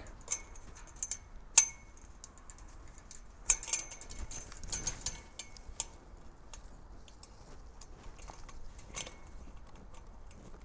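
Scattered light metallic clicks and clinks as aluminum twist ties are worked onto steel deer-fence wire at a post, with one sharper click about a second and a half in.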